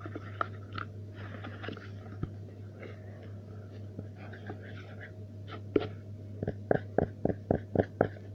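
A small hard object handled and rustled, then tapped or clicked about eight times in quick succession near the end, over a steady low hum.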